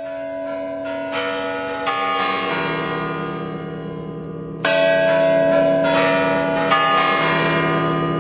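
Bells chiming: several struck bell tones that ring on and overlap, with a louder new strike about halfway through.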